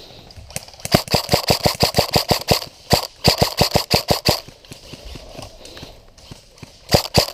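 Airsoft rifle firing on full auto in three rapid bursts of about nine sharp snapping shots a second; the last burst begins near the end.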